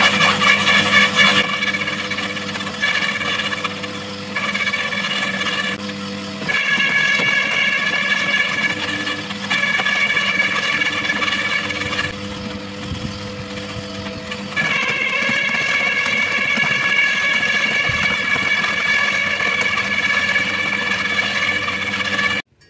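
Makita UD2500 electric garden shredder running and chewing leafy branches. Its steady high whine drops out and comes back several times as branches are fed in. It cuts off abruptly near the end.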